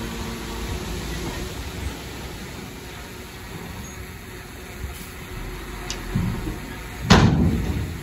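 Heavy earthmoving machinery running with a steady low rumble, a couple of faint clicks, and one loud bang about seven seconds in that dies away over most of a second.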